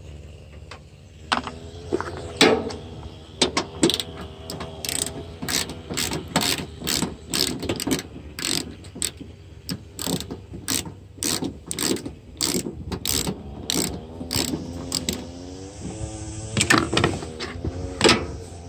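Socket ratchet wrench clicking as it loosens a headlight mounting bolt, the pawl clicking on each back-swing about twice a second, with the loudest clicks near the end.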